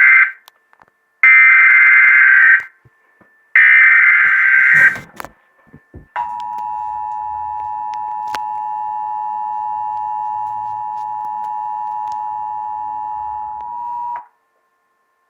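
Emergency Alert System tones opening a Required Monthly Test. First come the end of one and then two more short bursts of warbling digital SAME header data. About a second later the two-tone attention signal starts, a harsh steady dual tone (853 and 960 Hz) that holds for about eight seconds and cuts off.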